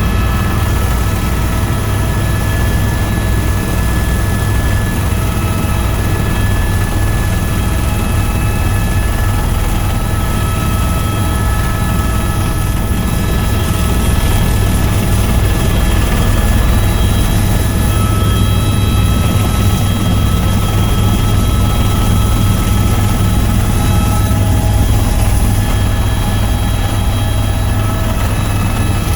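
Helicopter engine and rotors droning steadily, heard from inside the cabin in flight; slightly louder through the middle of the stretch.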